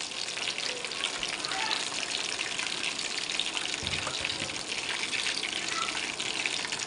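A whole fish deep-frying in a wok of hot oil, giving off a steady crackling sizzle.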